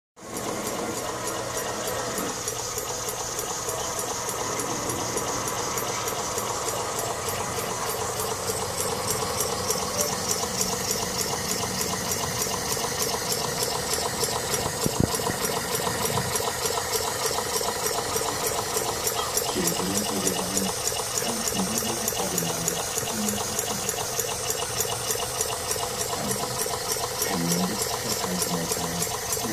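Homemade twin-cylinder mini steam engine running fast and steady: a rapid, even stream of exhaust puffs with hiss and a light mechanical clatter.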